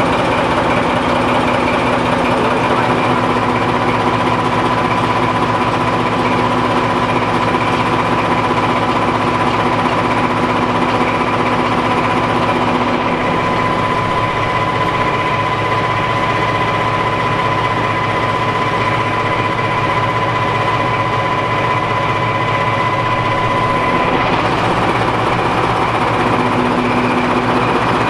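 Class 14 diesel-hydraulic locomotive's engine running loud and steady, heard from the cab, with a steady high whine that stops about four seconds before the end.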